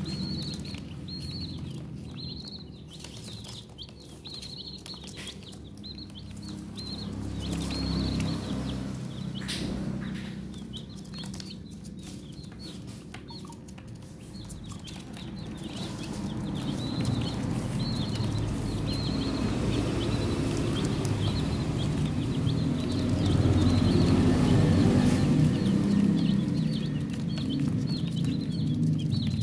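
Baby chicks peeping, a steady stream of short high peeps, over a low rumble that grows louder in the second half.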